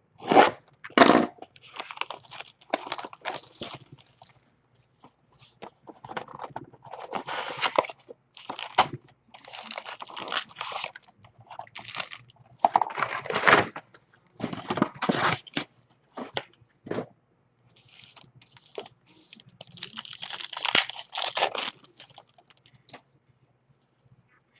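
Sealed packaging of trading-card packs being torn open and crinkled by hand: a string of irregular rips and rustles, some sharp and short, some drawn out.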